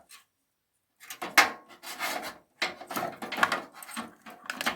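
Rubbing and scraping handling sounds, starting about a second in and running irregularly, as an SSD and its SATA cables are handled and fitted.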